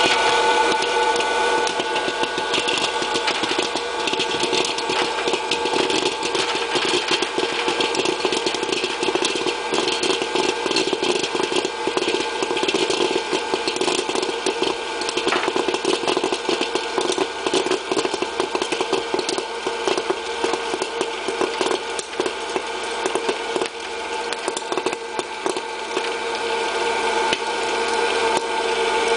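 Hot-air popcorn popper running: a steady whir from its fan motor, over a dense stream of clicks as kernels pop and popped corn rattles around the chamber and out through the chute.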